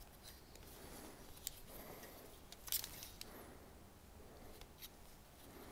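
A few faint clicks and light handling noises from a SRAM Eagle XX SL rear derailleur being worked by hand, its cage moved against the clutch. The loudest clicks come nearly three seconds in.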